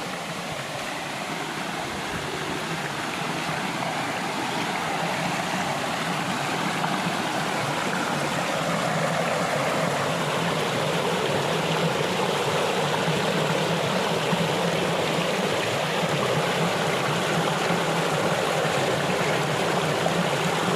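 River water rushing and flowing over rocks, a steady dense rush that grows gradually louder over the first half.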